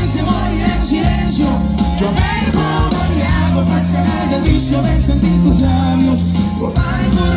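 Live band music played on stage and heard from within the crowd: a steady bass line that changes note about once a second, under guitar and at times a singing voice.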